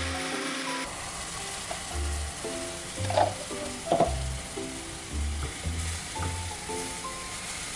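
A paste of blended wafer paper and water sizzling as it fries in a hot non-stick frying pan, with two sharper crackles about three and four seconds in. A blender runs for the first moment before the sizzling, and light background music plays underneath.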